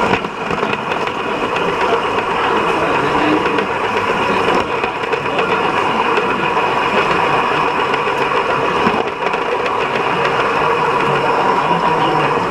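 Steady rolling and rattling of a gauge 1 live-steam model train's metal wheels on the track, heard close up from a wagon in the moving train, with a few steady ringing tones running through it.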